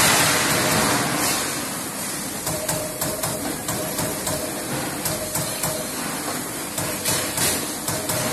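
Trumpf Trumatic 500 CNC punch press punching sheet metal in a rapid series of strokes, with a hiss at the very start and a tone that comes and goes in short spells as the sheet is moved.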